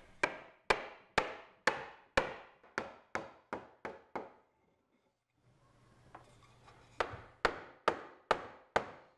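Hammer blows driving a sliding-dovetail rail into its waxed groove in a camphor laurel slab. The sharp wooden strikes come about two a second, stop for a couple of seconds around the middle, then resume.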